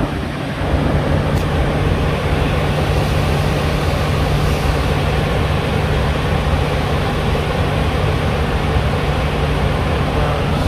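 Water rushing over a horseshoe weir in a steady roar, with a boat's engine running in a steady low hum underneath.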